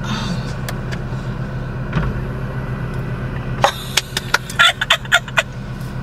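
Steady low hum of a Volkswagen Tiguan idling, heard from inside the cabin. A little past halfway comes a short, uneven burst of a woman's laughter.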